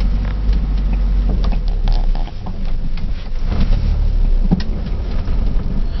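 A 1950s Morris Oxford's four-cylinder engine running in reverse gear as the car backs up, heard from inside the cabin as a steady low rumble. A few light knocks sound over it.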